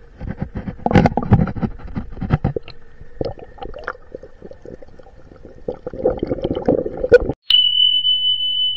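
Pond water gurgling and splashing around a camera held among crowding koi, with many irregular clicks and splashes. It cuts off suddenly near the end and a steady high beep tone begins.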